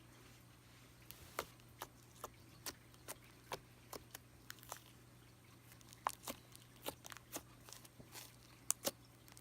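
Thick, creamy slime being pressed and squished by hand, giving a run of short, sharp clicks and pops at irregular intervals, about two a second, over a faint steady hum.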